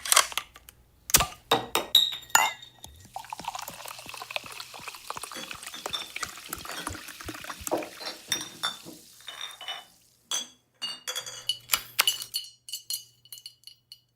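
Glassware clinking, then liquid poured into a glass for several seconds, then more light glass clinks with a short ring.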